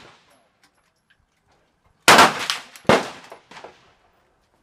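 Two shots from a Pietta 1851 .44 black powder cap-and-ball revolver, about a second apart, about two seconds in. Each shot is a sharp crack that trails off, with a smaller crack after the second.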